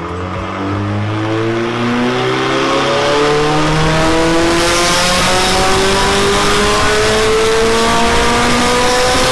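Nissan S14's engine at full throttle on a chassis dyno, revving steadily upward in one long pull and getting louder over the first few seconds. A hiss joins the engine sound about halfway through.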